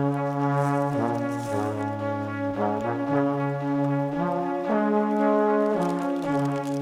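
Background music played on brass instruments, several sustained notes moving together in chords.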